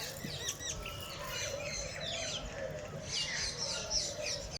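Many small birds chirping at once, a dense chorus of short, quick rising and falling calls that overlap throughout.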